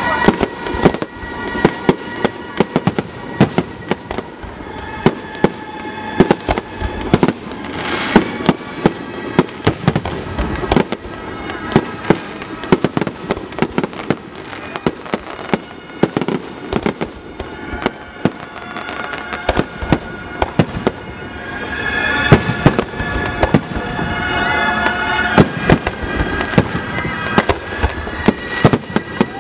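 Fireworks display: aerial shells bursting in rapid, irregular bangs, several a second throughout, with no letup.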